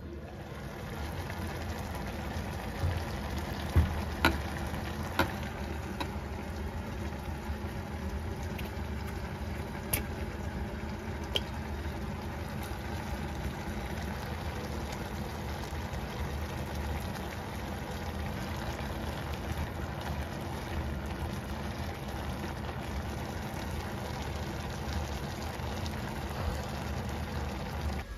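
Sweet potato stems cooking in a pot on an induction hob: a steady simmering hiss over a low hum, with a few light clicks of the lid and utensils.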